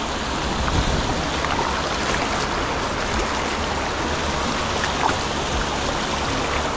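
Shallow water washing and lapping over the stones of a rocky beach, a steady rush of water noise.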